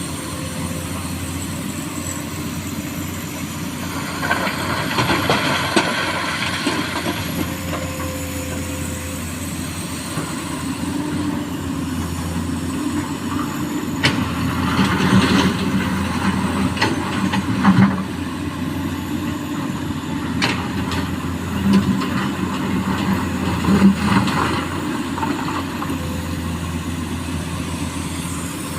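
Diesel hydraulic excavator running steadily while loading small stones into a dump truck, with three bouts of stones rattling and clattering, the engine note rising under load during the second and third.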